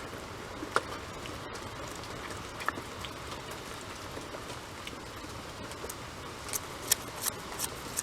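Steady hiss of wind and rain with scattered light ticks and taps, coming a little more often near the end.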